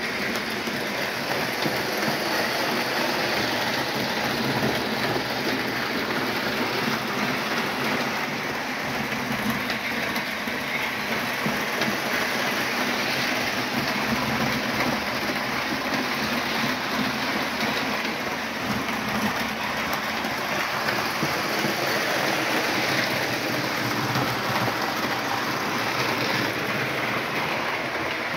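Model train running on its layout track: a steady whir of the locomotive motor and the wheels on the rails.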